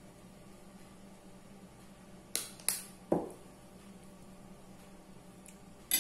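Three sharp clicks of a metal spoon and small bottle a little before halfway, then a louder clink near the end as the spoon is set down against a ceramic plate, over a steady low hum.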